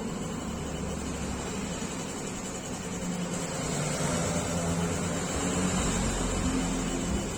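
60-watt CO2 laser machine running: a steady hum and hiss of fans and pumps, with a low whine that shifts in pitch and starts and stops as the machine works.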